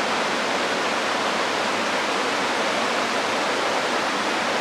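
River water rushing over shallow rocky rapids and ledges, a steady, even rush.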